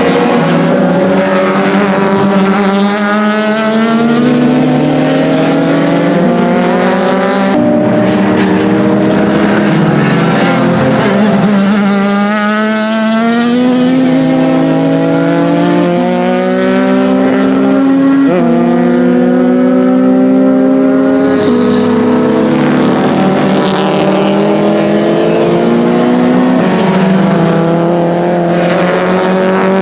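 BMW 2002 racecar's naturally aspirated four-cylinder engine under hard acceleration, the exhaust note climbing in pitch and dropping back at each gear change, several times over.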